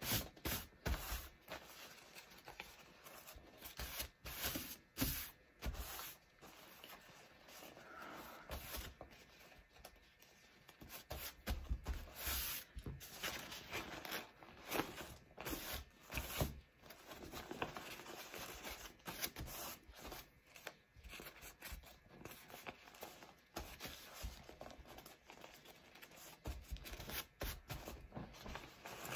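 Blue sterilization wrap rustling and crinkling as it is folded over and smoothed flat by hand on a tabletop, in irregular rustles and swishes.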